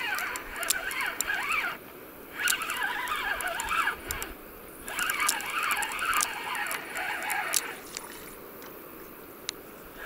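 Spinning reel cranked to wind in line: a whirring of the reel's gears that wavers in pitch with the speed of the handle, in three long stretches with short pauses between, starting again at the very end. Faint sharp clicks run throughout.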